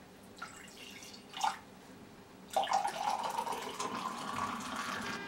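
Liquid pouring into a ceramic mug. It is faint at first, then a steady, louder pour starts about two and a half seconds in.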